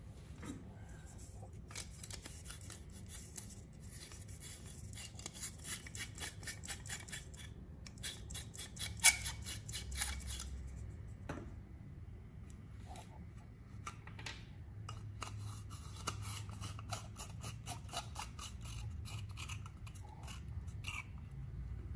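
Rapid clicking and scraping of a bulb's metal screw base being twisted into a plastic screw-type lamp holder, with one sharp click about nine seconds in. Looser clicks and handling of the plastic bulb housing follow.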